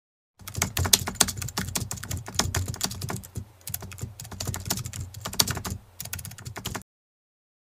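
Keyboard typing sound effect: fast, irregular key clicks that go with text being typed onto the screen. It starts about half a second in, slackens briefly twice, and stops abruptly about a second before the end.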